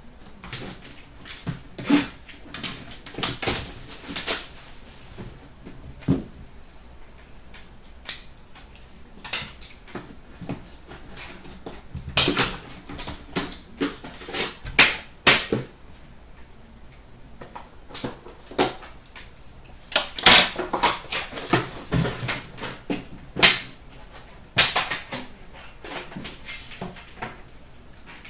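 A sealed box of Upper Deck The Cup hockey cards being unwrapped and opened by hand: plastic wrap crinkling and tearing, with cardboard scraping and light knocks. The sound comes in irregular clusters of sharp crackles separated by quieter pauses.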